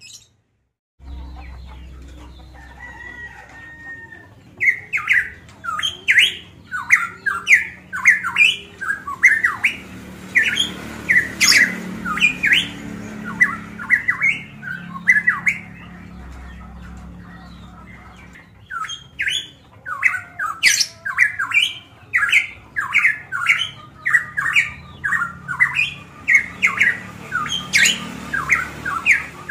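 A caged pitohui, the bird sold as cucak emas Papua, singing loud, rapid strings of short, sharp notes, several a second, in two long bouts with a short pause in between. The sound drops out briefly just at the start.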